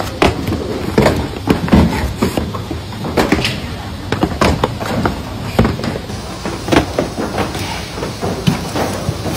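Irregular knocks and thuds, several a second, of small cardboard product boxes being handled, set down and packed into a corrugated shipping carton.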